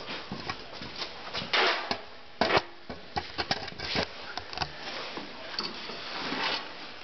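Tools and parts being handled during snowthrower drive assembly: scattered clicks and knocks, with two louder bursts about one and a half and two and a half seconds in.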